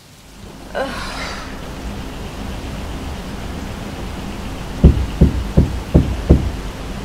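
Five heavy knocks on a bedroom wall, about three a second, over a steady low rumble. A short vocal sound comes about a second in.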